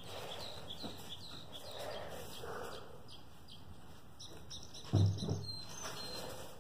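Small bird chirping over and over in the background, a string of short high chirps. A single knock sounds about five seconds in.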